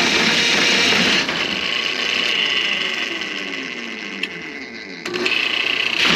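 Motorized drain-cleaning machine clearing a grease-clogged drain line: it runs loud, eases off about a second in with its pitch falling as it slows, cuts out about five seconds in, and starts up again near the end.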